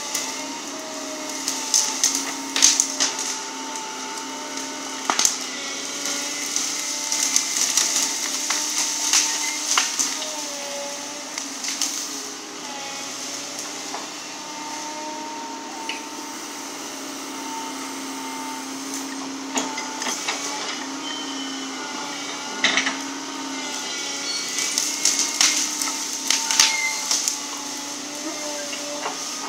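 Volvo EC140 tracked excavator running at work, its diesel engine and hydraulics giving a steady drone with a whining tone that wavers up and down as the boom and grapple move. Sharp cracks and snaps break in at intervals as branches break in the grapple, the loudest cluster near the end.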